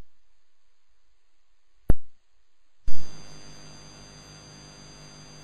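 A sharp click about two seconds in, then a second click a second later, after which a steady electrical hum and hiss sets in. This is typical of an old tape recording being stopped and restarted, or of a splice between two pieces of tape.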